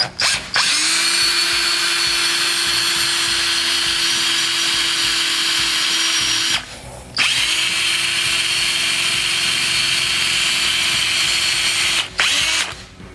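Electric hand drill with a 3/32-inch bit boring into a small engine's aluminum cylinder head beside a broken-off bolt. It spins up and runs steadily, stops briefly about halfway, runs again until about a second before the end, then gives one short blip.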